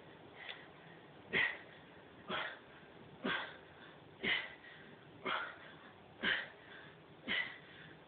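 A man's short, hard breaths, one with each pike push-up, coming about once a second: seven in a row.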